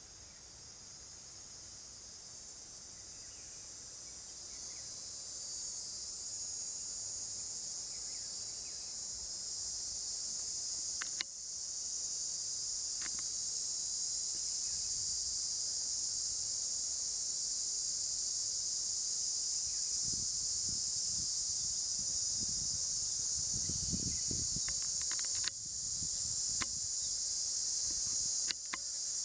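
Steady, high-pitched chorus of insects, swelling over the first ten seconds or so and then holding level, with a few brief clicks near the middle and end.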